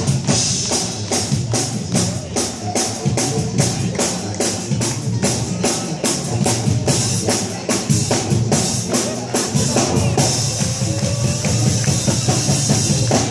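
A New Orleans-style band playing live, with drums keeping a steady quick beat and the crowd clapping along in time.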